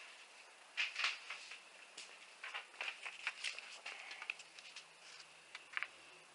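Paper crinkling and tearing in a run of irregular crackles as a dulled folding-knife blade is pushed through it rather than slicing cleanly. The edge is worn and rolled from heavy use.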